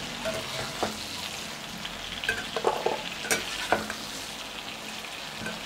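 Slit whole brinjals sizzling steadily in hot sesame oil in a nonstick pan, with a few light knocks and scrapes from a perforated steel ladle stirring them and lifting them out.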